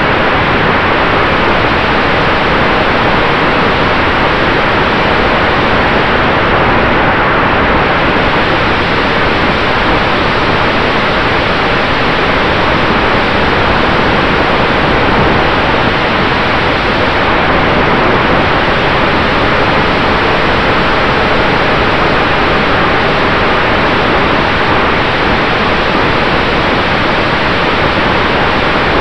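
Steady, loud rush of wind and propeller noise on the microphone of a camera riding on an electric RC warbird in flight, an E-flite F4U Corsair 1.2 with a brushless motor, with a faint steady tone underneath.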